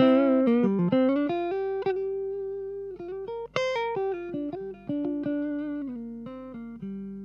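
Chateau JS03 hollow-body jazz electric guitar played through a small GL-10 practice amp: a melodic line of single notes picked with a plectrum, each note ringing on, a few of them sliding into the next. It ends on a held note that rings out.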